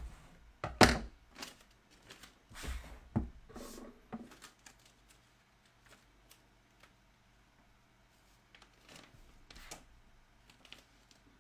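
Vinyl transfer tape being pulled from its roll and cut off: a few sharp crackles and clicks in the first four seconds, the loudest about a second in, then faint handling ticks.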